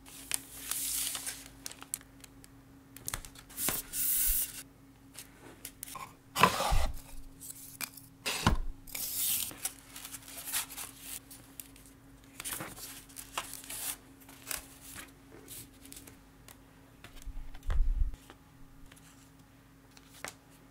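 Paper, card and plastic being handled on a cutting mat: a run of short rustles and swishes with scattered light taps and a few soft thumps, as an artwork is slid into a clear sleeve and fitted with corner protectors. A faint steady hum runs underneath.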